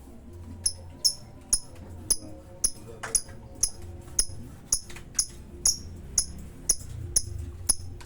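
Lovebird calling with sharp, high chirps repeated evenly about twice a second.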